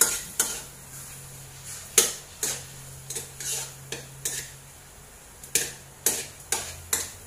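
Metal utensil stirring in a stainless steel pot, scraping and clinking against the sides and bottom in about a dozen irregular strokes, as garlic and onion are sautéed in butter.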